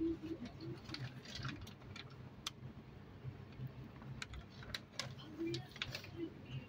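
Metal fork clicking and scraping against a stainless-steel bowl while mashing sweet potato and flour together: irregular sharp clicks, several a second, over a low steady hum.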